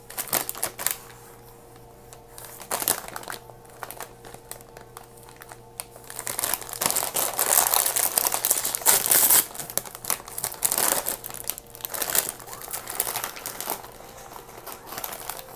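Plastic potato-chip bag of kettle chips crinkling as it is handled, in short scattered bursts. About six seconds in it is pulled open, with several seconds of loud, dense crinkling, then lighter crinkles as the bag is turned over.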